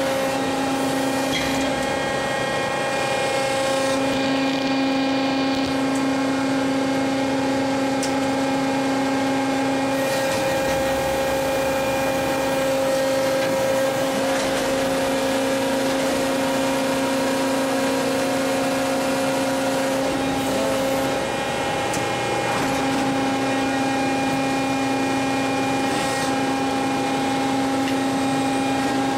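Electric drive motors of a large forklift battery changer running with a steady, many-toned whine and hum. The deepest note drops out briefly about ten seconds in and again about twenty-one seconds in, as the machine's drive pauses and restarts.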